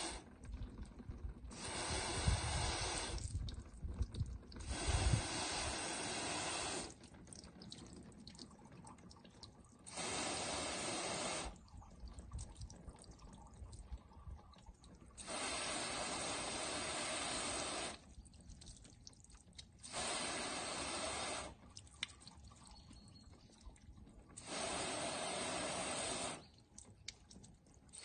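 Garden hose pistol-grip spray nozzle spraying water onto a car's bonnet in about six bursts of one to three seconds each, each switching on and off sharply, with water dripping and running off the paint between bursts. A few low thuds come during the first two bursts.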